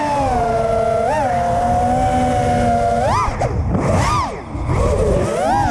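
FPV quadcopter's brushless motors and propellers whining, the motors run by a KISS Ultra flight controller set to 90% motor braking. The pitch holds fairly steady, then sweeps sharply up and down several times with throttle punches, over wind rush on the onboard microphone.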